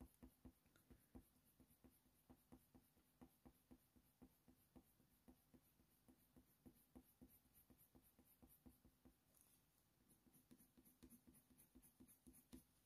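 Very faint scratching of a Faber-Castell Polychromos coloured pencil on hot-pressed watercolour paper, laying down short, quick fur strokes, several a second.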